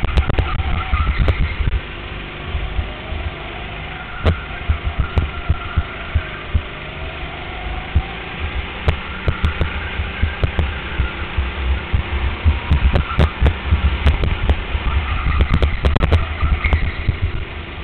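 Go-kart running at speed, heard from on board the kart: a heavy, pulsing low rumble with the engine note rising and falling through the corners, and frequent sharp knocks and rattles.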